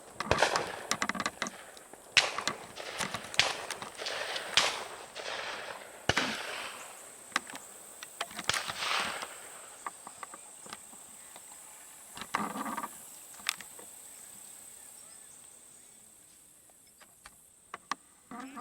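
A barrage of 12-gauge shotgun fire from several dove hunters around the field: about a dozen echoing shots in quick succession over the first ten seconds, then a couple of scattered shots. A steady high drone of insects runs underneath.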